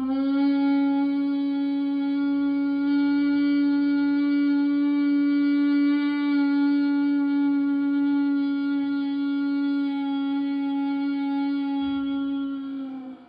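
A woman humming one long, steady note from the throat in Bhramari (humming-bee) breath, held for about thirteen seconds on a single exhalation. It fades out near the end with a slight dip in pitch.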